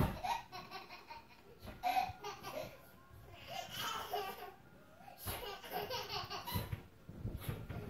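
Toddler laughing in several bursts of giggles.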